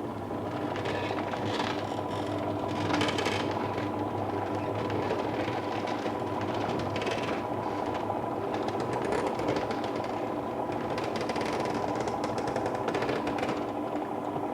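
Electric roller shutter running: a steady motor hum with the slats rattling irregularly as the shutter rolls.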